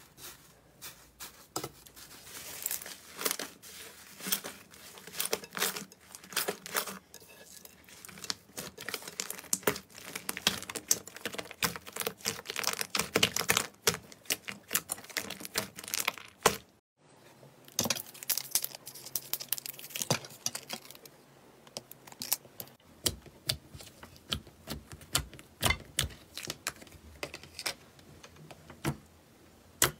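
Hands kneading and squeezing a large mass of fluffy slime in a glass bowl, giving dense crackling and popping. After a short break midway, another slime is pressed and handled, with slower, sharper separate clicks and pops.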